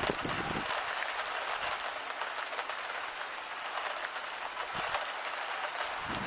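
Steady rain falling, a dense patter of drops hitting a hard surface.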